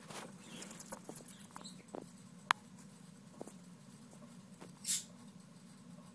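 A bearded dragon feeding on bugs from a small plastic bowl: small irregular clicks and scratches, with one sharp tick about two and a half seconds in and a brief rustle near five seconds.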